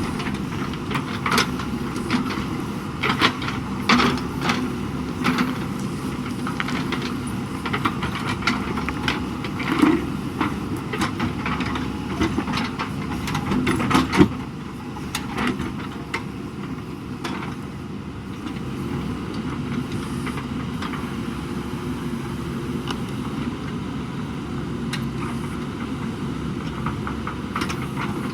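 Backhoe loader's diesel engine running steadily, with repeated metallic clanks and knocks from the working arm and bucket through the first half, the loudest about fourteen seconds in.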